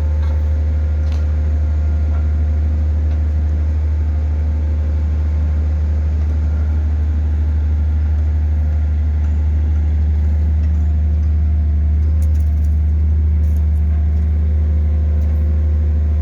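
Hydraulic static pile driver's engine running with a steady low drone, and a faint pitched line in its sound shifting about ten seconds in.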